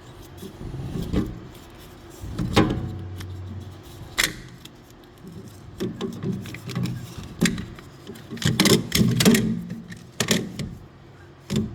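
Irregular metallic clicks and knocks of tools and brake parts being handled on a rear brake caliper with an electronic parking brake, with a quick cluster of clicks near the end.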